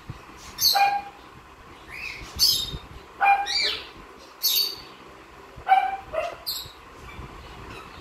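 Cockatiel giving a series of short chirping calls, about eight of them at irregular intervals, some in quick pairs.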